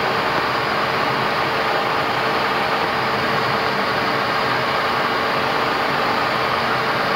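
Steady flight-deck noise of a Boeing 737 MAX taxiing with its CFM LEAP-1B engines at idle: an even rush with a faint steady hum underneath.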